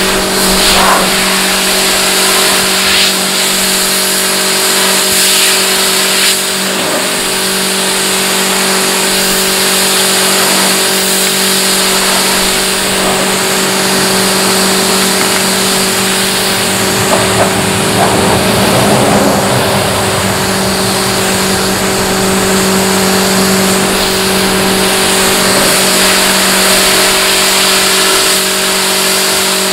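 Pressure washer running steadily: its pump motor hums a constant tone under the hiss of the high-pressure water jet spraying a mud-caked car.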